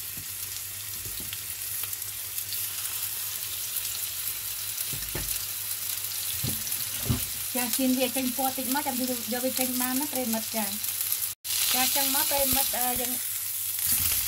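Chicken patties frying in hot oil in a pan, a steady sizzle. A voice sounds faintly over the sizzle for a few seconds past the middle.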